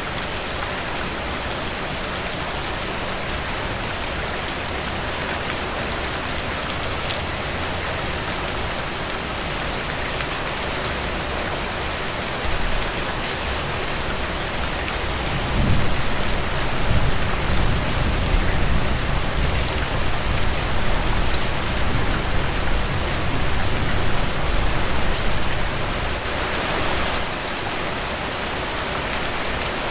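Steady rain falling on leaves, a dense even hiss with sharp ticks of individual drops. About halfway in, a low rumble swells for roughly ten seconds and then dies away.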